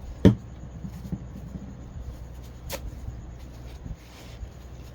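Paper towel being folded and handled, with soft rustling, a sharp knock about a third of a second in and a lighter click a little past halfway.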